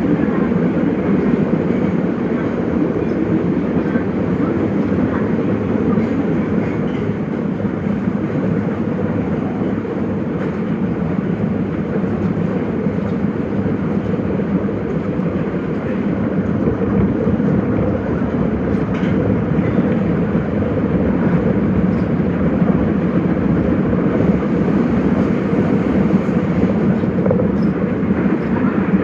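Nagoya Municipal Subway 5050-series train running at speed, heard from inside the car: a steady rumble of wheels on rail with a few faint clicks.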